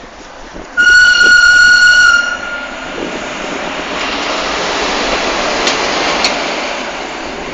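A Swiss SBB electric locomotive sounds its horn once, a single high tone about a second and a half long, starting about a second in. The locomotive and its coaches then pass close, the rushing rumble of wheels on rails swelling, with a couple of clicks from the wheels over the track.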